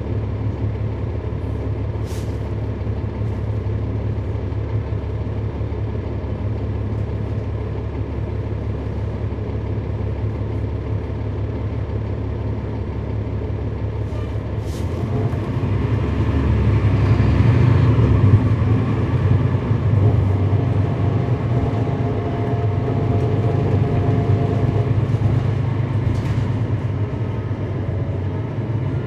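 Inside a 2011 NABI 416.15 transit bus, its Cummins ISL9 inline-six diesel runs low and steady for about fifteen seconds. It then rises as the bus pulls away and accelerates, the engine note climbing and road noise building. Three short sharp sounds cut through: near the start, midway and near the end.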